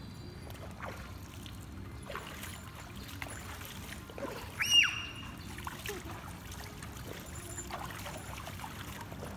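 Pool water gently sloshing and trickling, with a young child's brief high-pitched squeal about halfway through.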